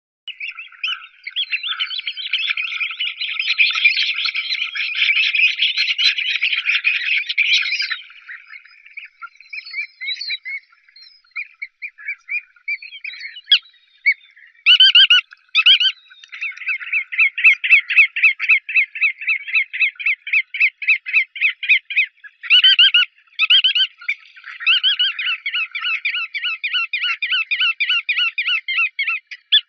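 Bar-tailed godwit calls: a dense, overlapping chatter for the first eight seconds, then scattered calls, two louder calls, and long runs of rapid repeated notes broken by a few louder calls.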